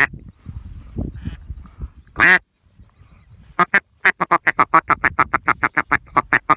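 Mallard duck call blown by a hunter: a single quack about two seconds in, then a long, fast, even run of quacks, about six a second, starting about three and a half seconds in. This is the greeting and feed-style calling used to work circling mallards. A low rumble runs underneath.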